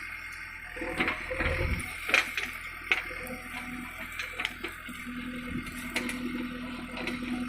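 JCB 3DX backhoe loader's diesel engine running low, with scattered sharp clicks and knocks from the working machine. A steady low hum joins in about five seconds in.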